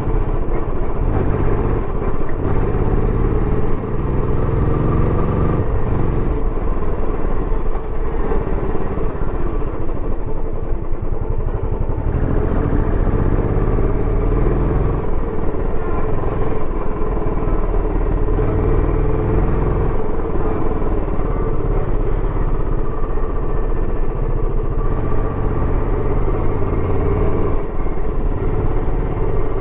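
Royal Enfield Bullet 350X's single-cylinder engine running through its stock exhaust while being ridden, a steady, loud exhaust note throughout.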